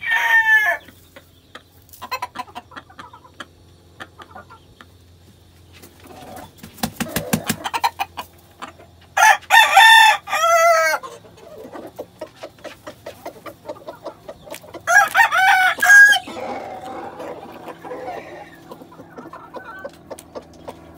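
Young Redquill/grey gamefowl cockerel crowing twice, once about nine seconds in and again about fifteen seconds in, with the tail of another crow right at the start. Short clucks and clicks fill the gaps between the crows.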